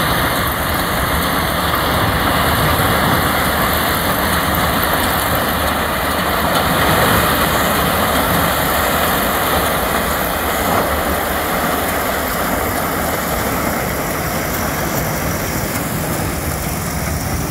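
Claas Crop Tiger 40 combine harvester running steadily under load as its maize header cuts and feeds in dry standing maize: a loud, even din of diesel engine and threshing machinery.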